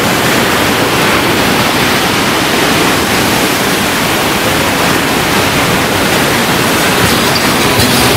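Ocean surf breaking on a beach: a loud, continuous rush of waves.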